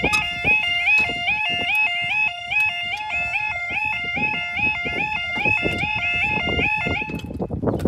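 UK level crossing yodel alarm sounding its rapidly repeating two-tone warble while the full barriers lower. It cuts off about seven seconds in, as the barrier comes down.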